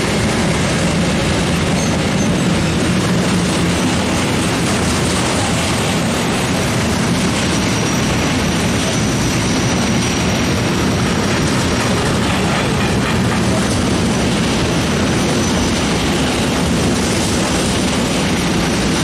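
Freight train hauled by a DB electric locomotive passing through: a loud, steady rumble of wheels on rail as the long string of covered sliding-wall wagons rolls by. A faint high squeal comes and goes midway.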